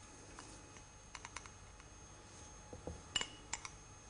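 Faint, scattered clicks and taps of a spoon against a cup as dry ingredients are spooned out: a few light clicks about a second in, then sharper taps and soft knocks around three seconds in.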